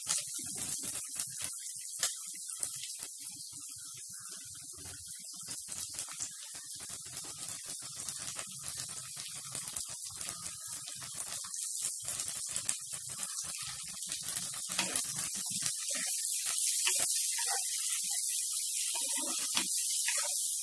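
Sliced onions, green chillies and capsicum sizzling in hot oil in a clay pot, with a plastic spatula stirring and clicking against the pot's sides. The sizzle grows louder in the last few seconds.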